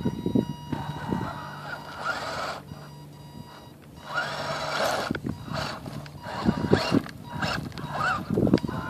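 Radio-controlled model golf cart driving up a dirt mound: its motor and gears whine steadily, the pitch rising and falling as the throttle changes near the end. There are several surges of scrabbling and crunching as the tyres dig into loose dirt.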